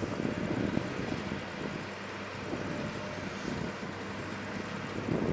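Small airport ground tug's engine running as it moves a set of boarding stairs, with a steady low hum underneath.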